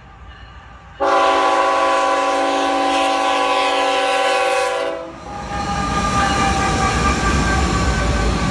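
The lead locomotive, a GE ET44C4 diesel, sounds one long blast of its multi-chime air horn for about four seconds, starting about a second in. After the horn stops, the locomotives pass close by with a loud low rumble of diesel engines and wheels on rail.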